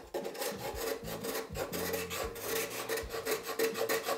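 Hand scraper drawn in rapid short strokes, several a second, over the curved face of a carved wooden corbel during final smoothing.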